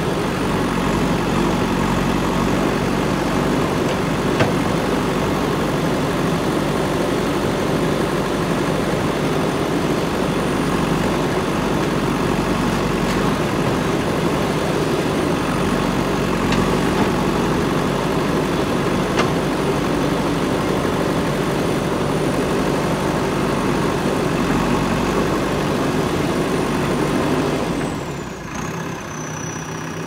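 A JCB backhoe loader's diesel engine running steadily while the backhoe digs soil, with a few brief knocks. Near the end the sound drops to a quieter, steadier engine hum.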